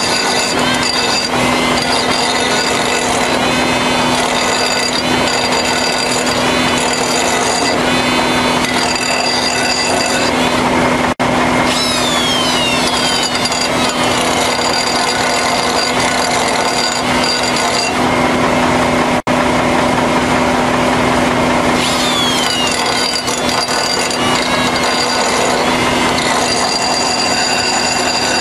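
Air die grinder running at speed, grinding the cutting edge of a steel tractor finishing-mower blade to sharpen it, with a steady high whine. The sound drops out for an instant twice.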